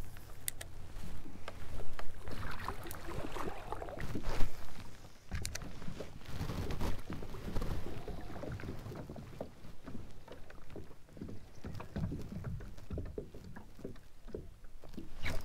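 Water sloshing and lapping against a kayak hull, with scattered knocks and clicks from the fishing rod and reel being handled.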